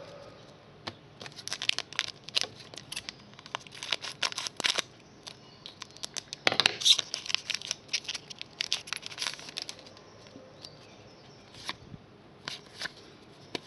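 Foil trading-card pack being crinkled and torn open, with cards handled and slid against each other: runs of sharp crackles and snaps, loudest about six and a half seconds in, thinning out near the end.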